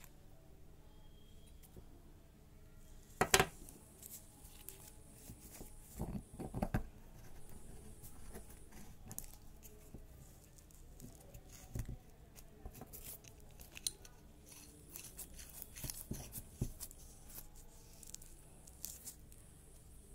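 Metal cable gland parts handled by hand: scattered clicks, taps and light scrapes, with one sharp knock about three seconds in and a few heavier thumps a few seconds later as parts are set down or knocked together.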